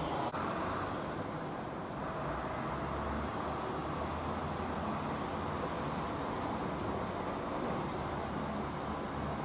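Steady road traffic noise with the low rumble of a vehicle engine passing below, strongest about three to five seconds in.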